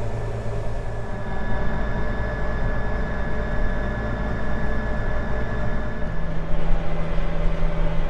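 Case IH 8940 tractor's diesel engine running, heard from inside the cab as a steady hum; its note changes about six seconds in.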